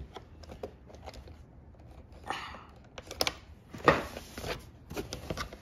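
Scissors snipping the ties that hold a plastic toy dinosaur figure in its box, with the cardboard-and-plastic packaging rustling and clicking irregularly; the sharpest snap comes about four seconds in.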